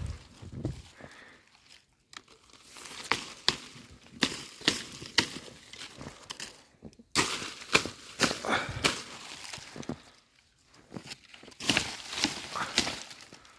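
A wooden stick knocking snow off snow-laden loquat branches, with sharp clicks of the stick on the branches and crackling, rustling leaves. It comes in irregular bursts with short lulls between.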